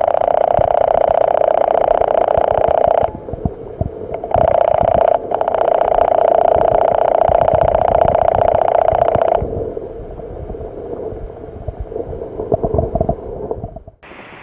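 Rushing of a fast, swollen river current recorded through a submerged camera, a loud steady hum with a rumbling low end. It cuts out for about a second near the start, dips again briefly, and drops to a lower, rougher wash about two-thirds of the way through.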